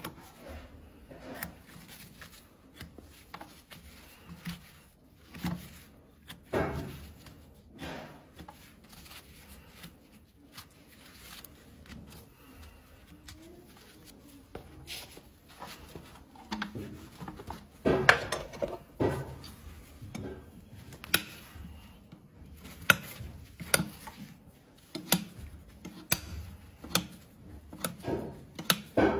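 Farrier's hoof knife paring and scraping the horn of a horse's hoof: irregular short cutting strokes and scrapes, sparse at first, then quicker and sharper from a little past halfway.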